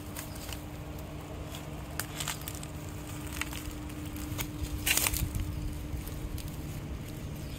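Dry grass and dead leaves rustling and crackling in scattered snaps, the loudest about five seconds in, over a faint steady hum.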